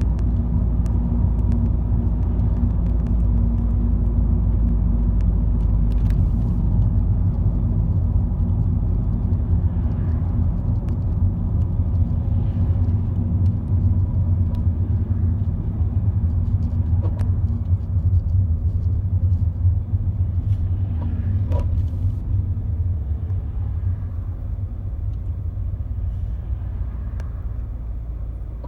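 A 2001 Alfa Romeo 147 with a Selespeed automated manual gearbox, driving with a steady low engine and road rumble that slowly gets quieter toward the end. A few brief knocks come through, about three in all. These are the harsh shock and abnormal noise the owner reports on Selespeed downshifts below fourth gear, which persist even though the Selespeed parts, clutch and release bearing have all been replaced.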